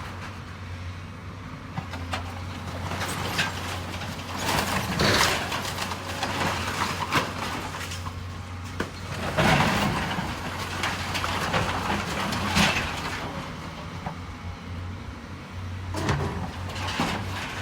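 Diesel engine of a heavy demolition machine running steadily while it breaks apart a building's floor structure, with irregular crashes, crunching and scraping of falling debris, the loudest about halfway through.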